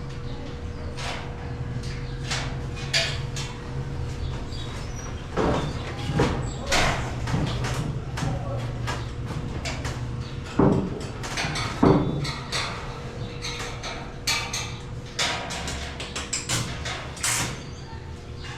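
Building work: irregular knocks, clatter and scraping from tools and materials, the two loudest knocks about eleven and twelve seconds in, over a steady low hum.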